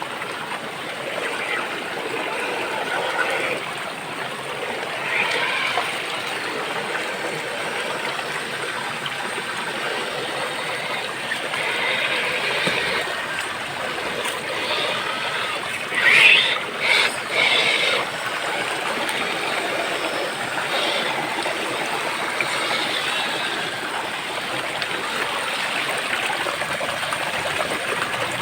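Running water, like a small stream, goes on steadily, with two short louder bursts a little past halfway.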